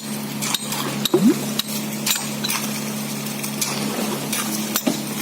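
Steady low machine hum with irregular sharp metallic clinks and knocks scattered throughout.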